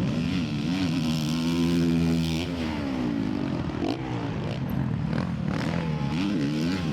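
Motocross race bike engines revving hard on track: the pitch climbs and holds for about a second, drops off sharply, then rises and falls again near the end.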